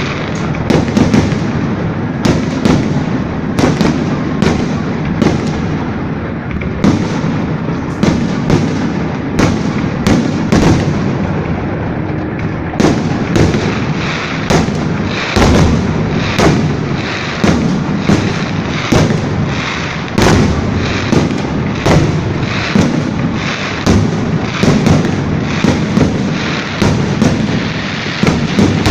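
Fireworks salute going off in a continuous barrage: sharp bangs about two a second over a steady rumble of further bursts and their echoes.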